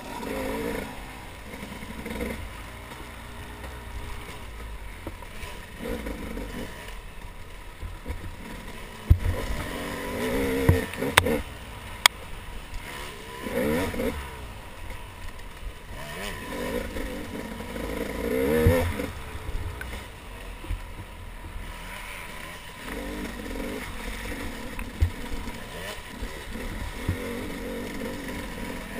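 Dirt bike engine revving up and down as the rider opens and closes the throttle, heard close up from a camera on the bike. Clatter and sharp knocks from the bike over rough ground, loudest around nine and twelve seconds in.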